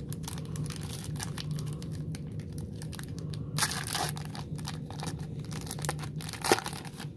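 Wrapper of a 2017-18 Upper Deck Ice hockey card pack crinkling and tearing as it is opened by hand, with louder rips about halfway through and again near the end.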